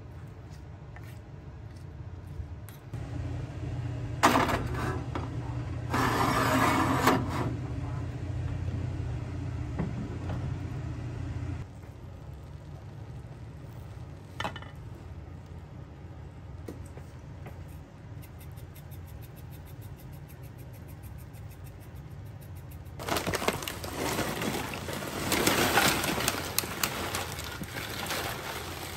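Tortilla chips poured from a plastic bag into a bowl near the end: a loud, crackling clatter of chips and crinkling bag lasting several seconds. Before that, a low steady hum with a couple of short bursts of kitchen clatter early on.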